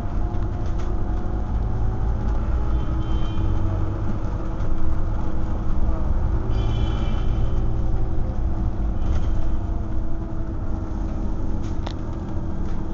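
Scania OmniCity double-decker bus's diesel engine and drivetrain heard from inside the passenger saloon: a steady low rumble and hum. A few faint, brief high tones come through a couple of times.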